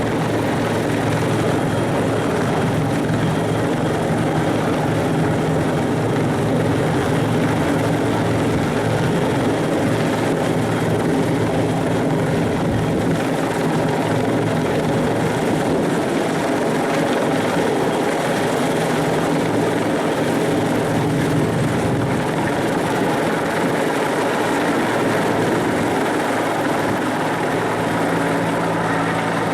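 Bell 412 helicopter's main rotor and twin turbine engines running at a steady, unchanging level.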